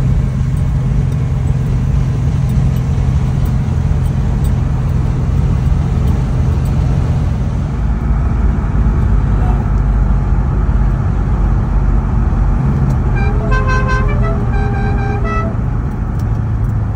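Steady engine drone and road noise inside a 1969 Dodge Charger's cabin as it drives along. About thirteen seconds in, a musical car horn plays a short run of notes at changing pitch for about two seconds.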